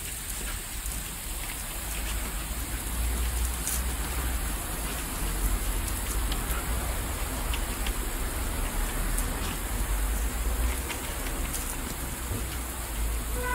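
Garden hose spraying a jet of water upward that splashes back down onto a tiled patio and plants, a steady rain-like spatter of falling water.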